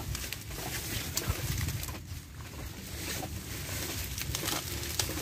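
Water plants (water hyacinth and reed stems) rustling and swishing in irregular bursts as a gloved hand pushes through them in shallow water.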